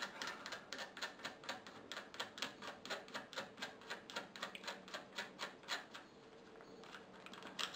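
Quick, light metallic ticking, about four or five ticks a second, as the wing nut on the Honda GX160's air cleaner stud is spun off by hand; the ticking stops about six seconds in.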